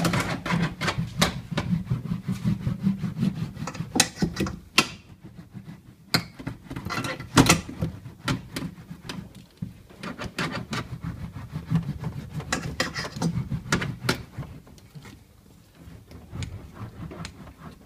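Heated, foil-faced vibration-damping sheet (Aero Plus, 3 mm thick) being rolled out and pressed hard onto a car door's inner metal panel: a busy run of rubbing strokes with irregular clicks and knocks, pausing briefly now and then.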